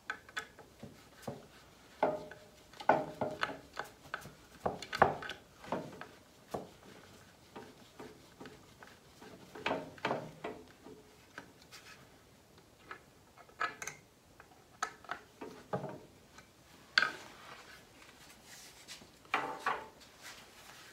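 Wood screws being turned by hand with a screwdriver through a wooden leg bracket: irregular short scraping, creaking turns as the threads bite into the wood, with brief pauses between.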